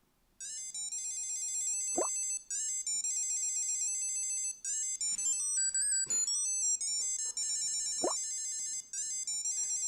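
A high, chiming electronic melody of quick beeping notes, like a tracker's ring tune, from a Tile Mate Bluetooth tracker. Two short rising sweeps cut through it, one about two seconds in and one near eight seconds.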